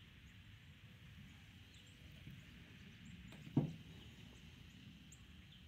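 Faint outdoor background with one dull knock about three and a half seconds in, as a brake part or tool is set down on a ribbed metal truck tailgate.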